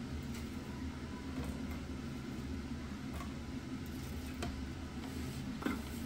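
A steady low mechanical hum, with a few light clicks and knocks of ceramic plates being handled on a counter. The sharpest knock comes near the end, as a plate is moved.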